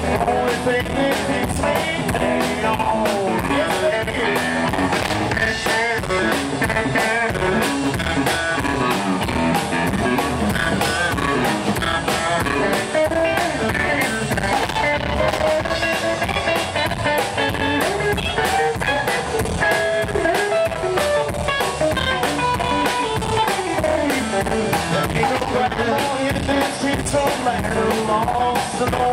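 Live rockabilly band playing: electric guitar picking lead lines over a steady beat on a drum kit, with upright bass underneath.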